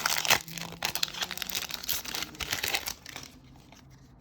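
Foil wrapper of a Magic: The Gathering set booster pack being torn open and crinkled, dying down about three seconds in.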